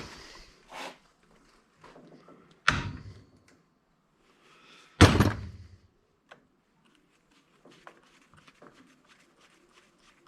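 Two heavy knocks about two seconds apart, each with a short ring, among lighter knocks and taps: parts of an old electric angle grinder being knocked and handled while it is taken apart for scrap. Many small faint clicks and taps follow near the end.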